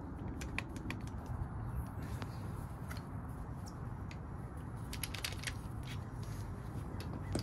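Faint, irregular small clicks and ticks of hand tools and heavy battery cable being handled for crimping, over a steady low hum.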